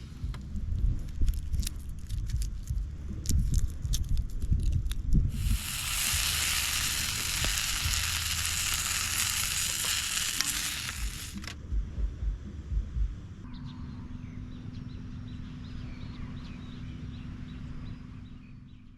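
Food sizzling in a hot pan over a campfire for about six seconds in the middle, the loudest sound, preceded by scattered sharp clicks and low knocks and followed by a few knocks and a quieter low hum.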